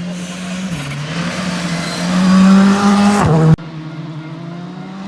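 Rally car engine at high revs approaching and passing close, growing loud and then dropping sharply in pitch as it goes by, cut off abruptly a little after halfway. A fainter rally engine follows, rising in short steps as it pulls through the gears.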